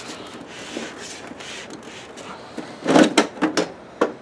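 Plastic top cover of a Sony VPL-HW45ES projector being worked loose and lifted off by gloved hands: soft rubbing, then a quick cluster of clicks and knocks about three seconds in and one more knock near the end as the cover comes free of its catches.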